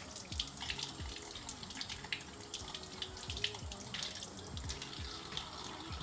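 Kitchen tap running into a sink, the stream splashing irregularly off hands as small red mullet are rinsed one by one under it.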